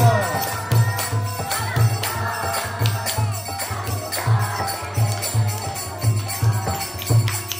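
Kirtan music: a harmonium holding chords under the regular bass strokes of a mridanga drum, about two a second, with hand claps and voices singing along.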